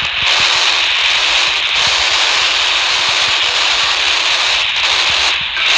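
Handheld UHF radio's speaker giving a loud, steady hiss of FM static with no voice coming through, breaking briefly near the end.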